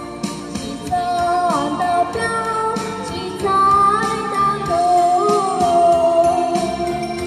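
A woman singing a Hmong-language song into a microphone over instrumental accompaniment with a steady beat, her melody line gliding between held notes.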